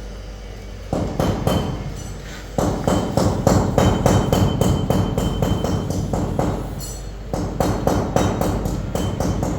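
A low steady hum, then about a second in a fast percussive beat starts suddenly and grows louder a little later. This is most likely background music with drums.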